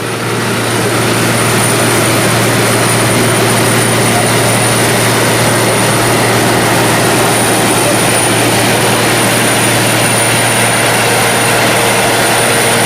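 Caterpillar PM102 cold milling machine at work: a loud, steady din of diesel engine and cutting drum with a constant low hum and a faint high whine. It swells up over the first second.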